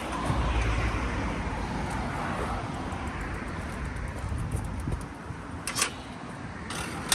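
Road traffic: a vehicle passing, a low rumble that swells just after the start and fades after about five seconds, with two short sharp clicks near the end.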